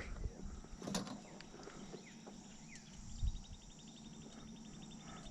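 Quiet swamp wildlife sounds: a faint steady insect hum, a few short falling bird chirps, and a rapid high trill of about ten pulses a second starting about three seconds in. A single knock about a second in.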